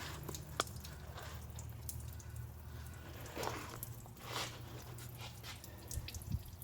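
Leftover water dripping and trickling from the engine block with the water pump removed, with scattered light clicks and a steady low hum underneath.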